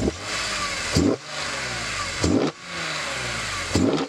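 BMW E46 M3's straight-six engine revving and accelerating hard, broken by four sharp, loud bursts a second or so apart, each followed by a brief dip.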